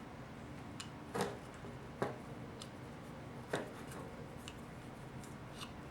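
Small metal parts of a 4L60E transmission pump clicking and tapping as they are handled and pushed into place: three sharper clicks about one, two and three and a half seconds in, with fainter ticks between.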